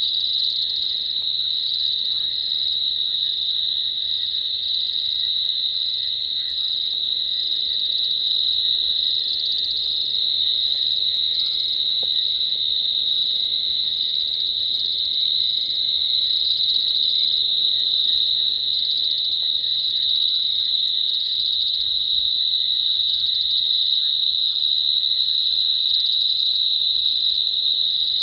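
Steady, high-pitched chorus of night insects, continuous and unbroken.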